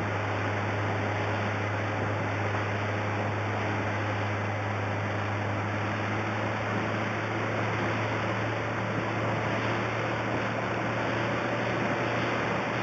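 Motorboat running at cruising speed: a steady low engine drone under an even rush of wind and water.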